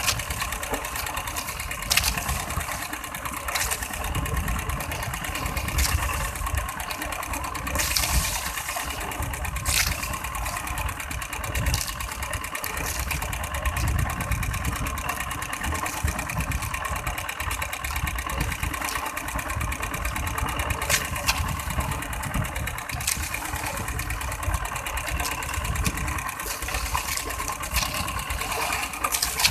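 Small engine of an outrigger fishing boat running steadily, with a few sharp knocks scattered through.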